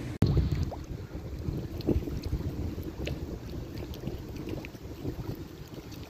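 Wind buffeting the microphone, an uneven low rumble, with choppy lake water lapping faintly.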